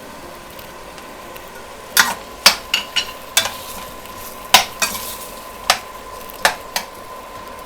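Spoon clacking and scraping against a cooking pan while stirring tomatoes, onion and cashews in oil and butter, about ten sharp knocks from about two seconds in. Under it is a faint steady sizzle.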